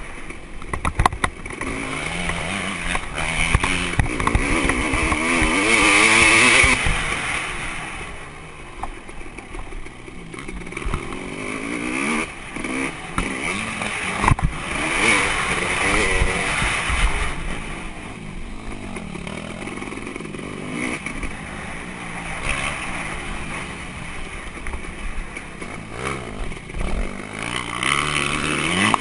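Dirt bike engine revving up and down as the throttle is opened and closed, heard from a camera mounted on the bike. Sharp knocks are scattered through it as the bike rides over the rough dirt track.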